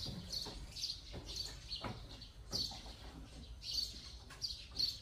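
Small birds chirping repeatedly in quick short calls, with a few soft footfalls on wooden stairs.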